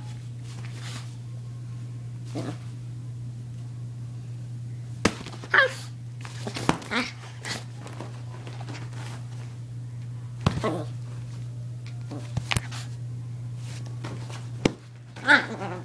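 A small, angry dog growling, breaking into a few short, sharp yaps and snaps, with knocks from handling in between.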